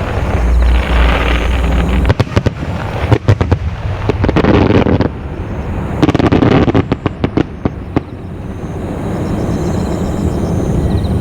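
Aerial fireworks shells bursting: a deep booming rumble, then rapid volleys of sharp cracks and bangs about two seconds in and again about six seconds in.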